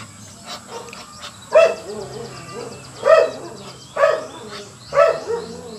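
An animal calling loudly and repeatedly: four strong calls roughly a second apart, starting about a second and a half in, with fainter calls between.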